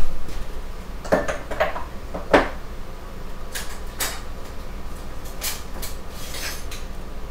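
Off-camera kitchen handling: several separate light knocks and clinks of dishes, containers or utensils being set down and picked up, over a faint steady low hum.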